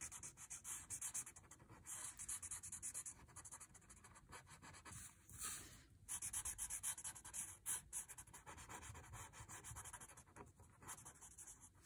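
Paper blending stump (tortillon) rubbing graphite shading on a paper tile in quick short strokes, about four a second, with a few brief pauses; a faint, dry scratching.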